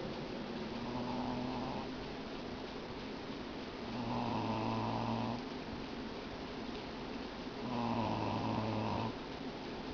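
A pet snoring in its sleep: three even snores about three and a half seconds apart, each lasting over a second, the first one fainter than the other two.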